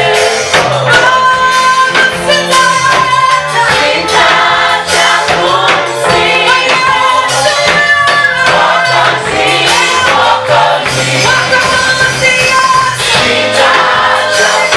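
Gospel praise-and-worship music: a group of singers in harmony over a band with bass and steady percussion, loud and continuous.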